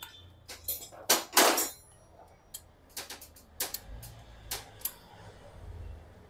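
Irregular metallic clicks and knocks of hand tools on a Bajaj Pulsar 150's cylinder head as the tappet clearances are set and the lock nuts tightened, with a longer, louder noise about a second in.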